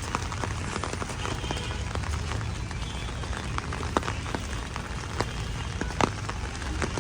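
Heavy rain falling steadily, a constant hiss with irregular sharp ticks of drops striking close by; the loudest tick comes about six seconds in.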